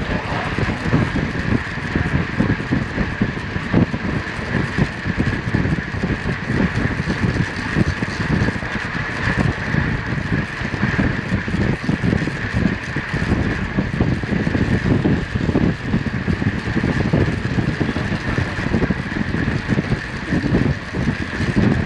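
Wind rushing and buffeting over the microphone of a camera on a track bike at about 33 mph, with a steady high hum above the rumble.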